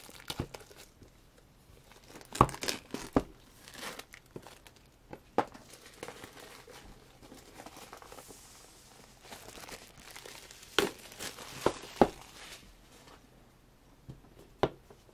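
Plastic shrink-wrap being torn and crinkled off a sealed CD album box, with scattered sharp clicks and taps as the packaging is handled.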